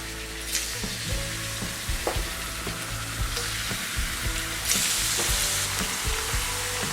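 Food sizzling in a hot pan, a steady hiss that swells louder for about a second about five seconds in, with scattered light knocks.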